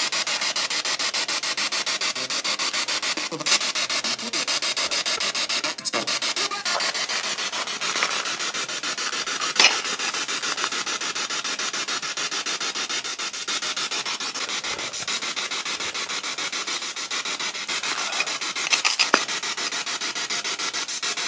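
Ghost-hunting spirit box (a radio scanning rapidly through stations) played through a small portable speaker: a steady hiss of radio static, chopped many times a second as it sweeps, with a sharper click about halfway through and a few louder blips near the end.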